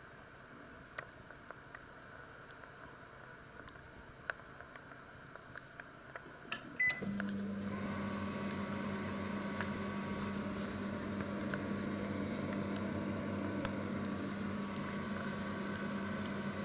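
Combination microwave oven's rotary time dial giving light clicks as it is turned, then a short beep about seven seconds in as the oven starts. From then on the microwave runs with a steady low hum and fan noise while it heats.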